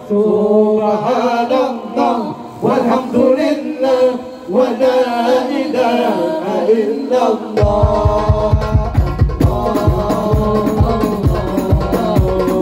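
Men singing an Arabic devotional song through microphones in long, ornamented vocal lines, at first with no accompaniment. About seven and a half seconds in, hadrah frame drums and a bass drum come in with a fast, steady beat under the voices.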